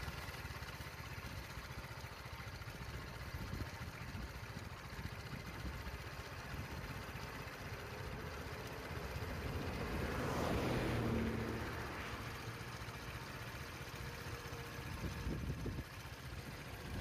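A vehicle engine idling steadily with a low rumble, swelling louder for a couple of seconds about ten seconds in.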